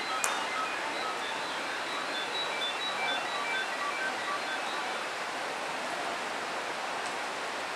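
A steady, even rushing hiss with faint music notes over it, and one sharp click just after the start.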